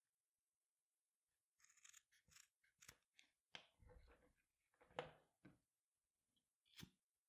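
Scissors snipping through strap webbing: faint, crisp cuts starting about a second and a half in, then scattered clicks and taps as the pieces are handled, the loudest about five seconds in.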